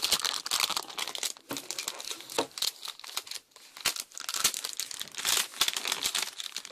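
Thin clear plastic film crinkling and crackling irregularly as it is pulled and slid off a new tablet.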